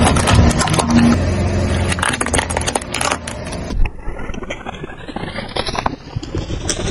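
Small objects crunching and crackling as a slowly rolling car tyre crushes them on asphalt, over a low car rumble. The crackling is dense for the first few seconds, then turns sparser and quieter as a pair of Mentos candy rolls is bent flat under the tyre.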